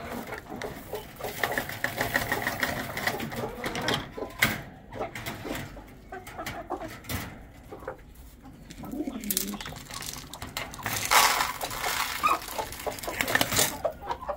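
Caged domestic pigeons cooing, with a low coo about nine seconds in and scattered clicks and rattles. A loud rustling burst lasting a couple of seconds comes near the end.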